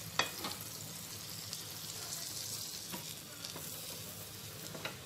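Butter sizzling steadily as it melts on a hot nonstick dosa tawa, with a few light clicks.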